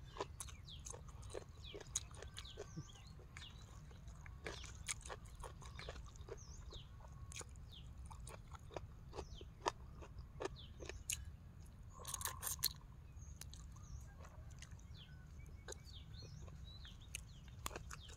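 A person chewing food, close to the microphone: quiet wet chewing with many small clicks and soft crunches of raw vegetables and rice noodles, and a louder burst of noise about twelve seconds in.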